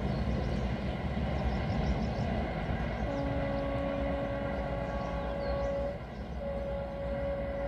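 Approaching Indian Railways locomotive's horn sounding two long blasts: the first starts about three seconds in and is held for about three seconds, and the second begins after a short gap near the end. A steady low rumble runs underneath.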